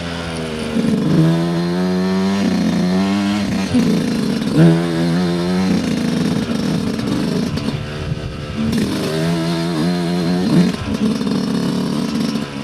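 Dirt bike engine under way, revving up and backing off again and again as the throttle is worked, the pitch climbing in several short runs.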